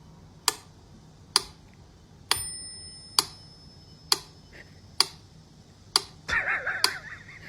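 Steady clock-like ticking, about one tick a second, with a single bell-like ding a little over two seconds in and a brief wavering sound near the end.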